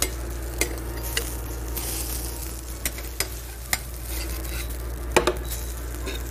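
Food sizzling in a frying pan, with a utensil stirring and knocking against the pan in several sharp clicks.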